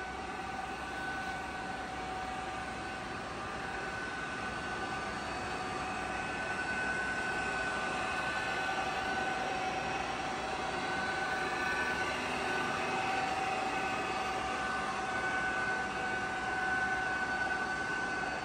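Van Norman No. 24 universal milling machine running, a steady mechanical hum with two steady whining tones from the spindle drive. The spindle turns smoothly with no extra noise, a sign of sound bearings and gearing.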